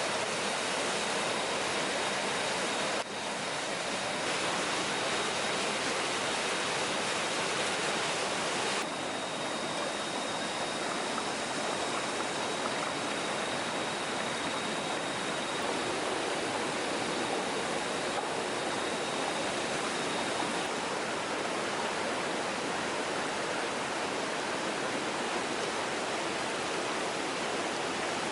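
Rushing stream water, a steady even rush with small shifts in level about 3 and 9 seconds in.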